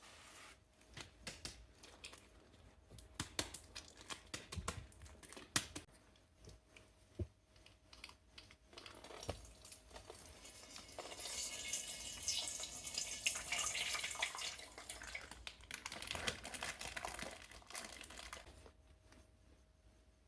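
Plastic bags being handled, crinkling, with scattered light clicks, and a denser stretch of running liquid in the middle.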